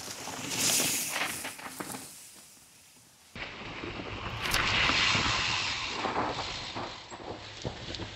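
A mountain bike riding a dirt trail: tyre noise and knocks over rough ground, with wind on the microphone. The sound cuts abruptly about three seconds in and a louder stretch of the same kind of riding noise follows.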